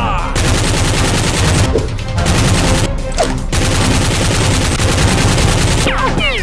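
Rapid automatic gunfire sound effect in long continuous bursts, broken by two short pauses about two and three seconds in.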